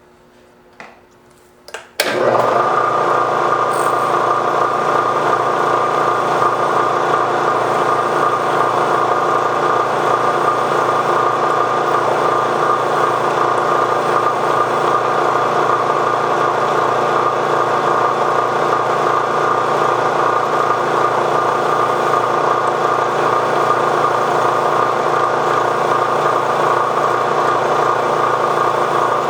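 Milling machine spindle switched on about two seconds in, then running steadily with a mechanical whine while a small spot drill cuts a hole in a steel rifle bolt.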